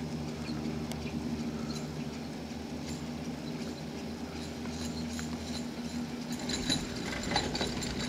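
The haul rope of a 1950s Gerhard Müller four-seat gondola lift runs over a tower's sheave train with a steady hum. Near the end comes a clatter of clicks as a cabin's screw-clamp grip rolls over the tower sheaves.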